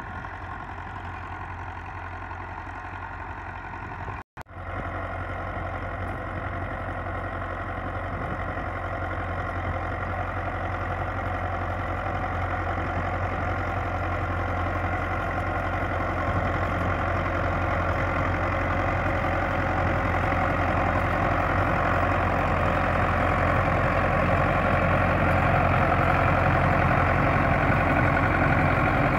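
Belarus 510 tractor's four-cylinder diesel engine running steadily under load while driving a rotavator through dry soil, growing louder as it approaches. The sound drops out for a moment about four seconds in.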